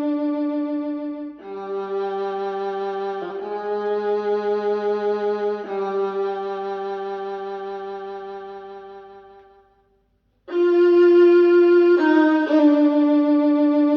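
Bowed violin music played back through a 1995 Mission 761i loudspeaker: long held notes that fade away to a brief silence about ten seconds in, then a louder passage starts abruptly.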